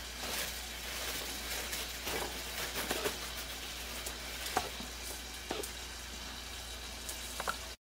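A hand shifts fried potato wedges about on a paper towel, giving soft rustles and a few light taps, over a steady faint crackling hiss. The sound cuts off suddenly near the end.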